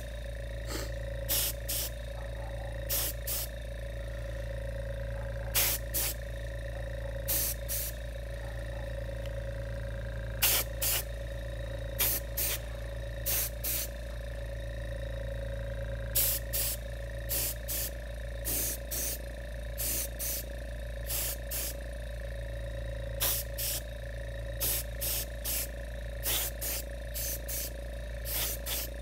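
Small gravity-feed spray gun on an air hose spraying DuraCoat flat black onto a pistol in short hissing bursts, often in quick pairs, a second or two apart, laying down light first coats. A steady hum runs underneath.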